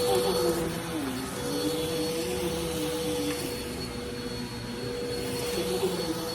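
Dirt Devil Vigor cyclonic pet vacuum cleaner running steadily with a constant whine, while a lower tone in its sound wavers up and down.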